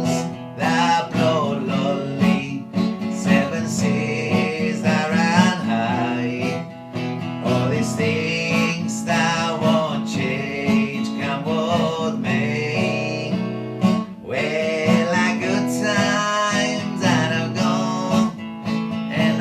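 Acoustic guitar strumming a folk song, with a wavering melody line carried over it throughout.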